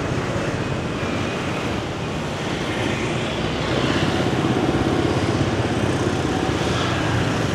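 Busy street traffic: motor scooters and cars passing close by in a steady run of engine hum and road noise, growing a little louder about halfway through.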